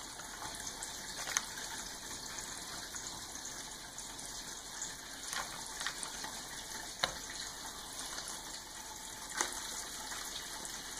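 A steady rushing hiss, with a few light clicks and clinks of a knife and a metal butter dish as a block of butter is unwrapped, cut and set in the dish.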